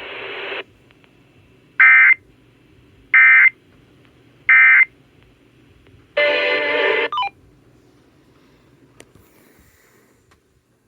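A hiss cuts off shortly after the start. Then come three short, identical, buzzing data bursts about 1.3 s apart: the Emergency Alert System end-of-message (EOM) code, sent late. A roughly one-second burst of noise follows a little later.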